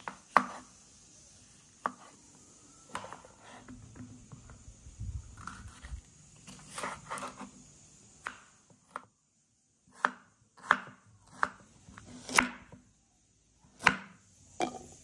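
Chef's knife chopping on a wooden cutting board, slicing through mushrooms, crisp green bell pepper, and garlic and red onion. The knife strikes come at an uneven pace, with a short pause about nine seconds in and sharper single chops after it.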